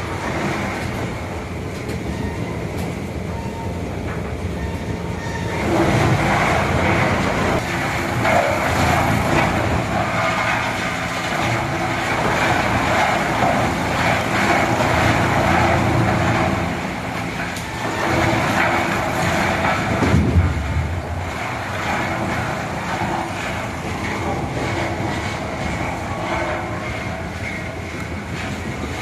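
Large industrial wood chipper, rated at up to 40 tons of chips an hour, running with a steady mechanical hum. It grows louder and rougher with chipping noise about six seconds in, eases briefly around seventeen seconds, then picks up again.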